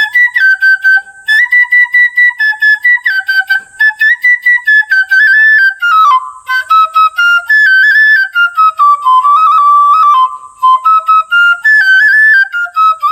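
Bansuri (Indian bamboo flute) playing a solo melody, with quick tongued short notes alternating with longer held notes that step up and down.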